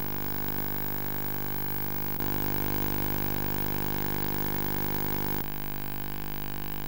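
A steady hum made of several held tones, with no voices. Its make-up changes abruptly about two seconds in and again about five and a half seconds in.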